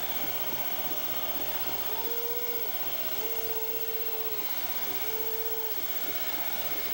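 Baseball stadium crowd cheering and chanting, a steady roar of many voices. Three long held notes sound over it about two, three and five seconds in, the middle one the longest.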